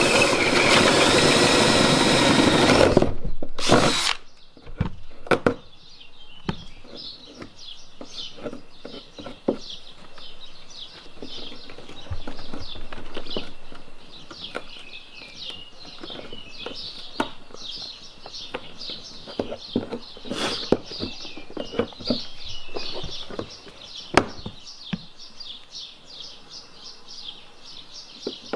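Cordless drill running at speed for about three seconds, boring a hole through the boat's side, with a short second burst just after. Then scattered light clicks and knocks of cables and fittings being handled.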